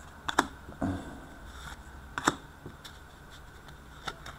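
2015-16 Upper Deck Portfolio hockey cards being flicked through by hand, one card slid off the stack at a time. Each card gives a short sharp snap, a few in all, the loudest a little past two seconds in.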